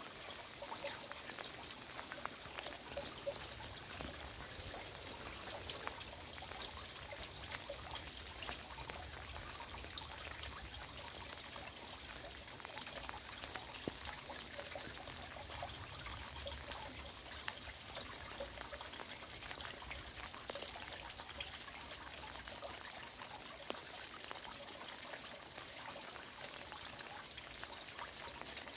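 Heavy rain falling steadily, a continuous hiss of rain scattered with many small close drip and splash clicks.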